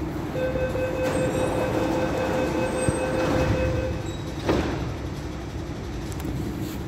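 A steady door-closing warning tone sounds for about three and a half seconds at an MTR Tung Chung Line Rotem EMU's doors. About four and a half seconds in, the doors shut with a knock, over the low rumble of the train standing ready to leave.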